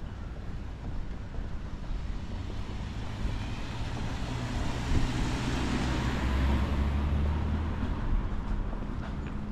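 A motor vehicle passes close by. Its engine hum and road noise swell to a peak about halfway through, with a brief knock as it builds, then fade.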